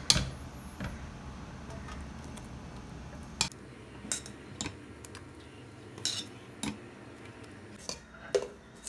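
Metal spoon knocking and scraping against a stainless steel pot and plate as a thick cooked mixture is spooned out, with scattered separate clinks about a second apart.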